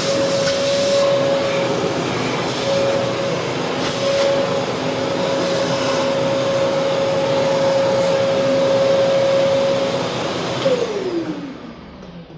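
Vacuum cleaner running steadily with a high whine as its hose nozzle is worked around. About ten and a half seconds in it is switched off and the motor's whine falls as it spins down.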